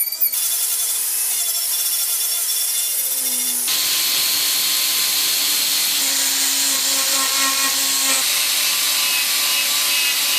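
A high-speed rotary tool with a small burr carving into wood, a thin high whine for about three and a half seconds. Then it switches suddenly to an angle grinder with an abrasive disc grinding and shaping the wood, a louder and fuller steady grinding that cuts off at the end.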